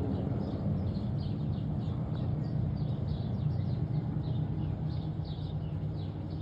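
Pratt & Whitney R-1340 nine-cylinder radial engines of a formation of T-6 Texans droning and slowly fading as the aircraft move away. Small birds chirp rapidly over the drone.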